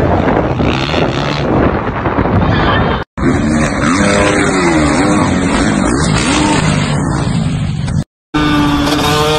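Dirt bike engines in three short clips cut one after another, with a brief dead gap at each cut, about three seconds in and about eight seconds in. In the middle clip the engine pitch rises and falls over and over as the throttle is worked; in the last the engine runs at a high, steady pitch at speed.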